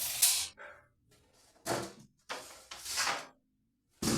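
Four short scraping strokes on MDF board, each under a second and irregularly spaced.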